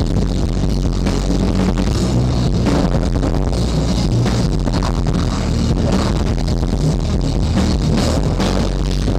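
A rock band playing live, with the drum kit's drums and cymbals hit hard throughout.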